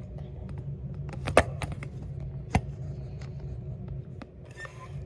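Handling noise from a phone being set in place: light rubbing and small ticks with two sharp taps, about a second and a half and two and a half seconds in, over a steady low hum.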